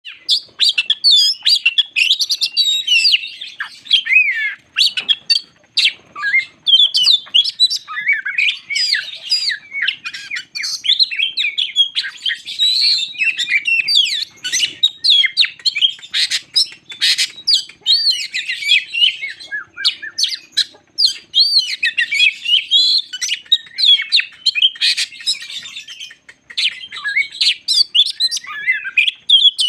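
Oriental magpie-robin (kacer) singing hard and without pause: a long, varied stream of rich whistles, trills and sharp chips. This is the bird in full song that keepers call 'teler', the kind of song used as a lure to set other birds singing.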